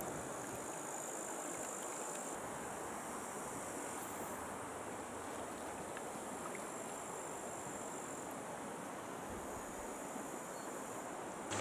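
Steady rush of a shallow, stony river flowing past, with no distinct events.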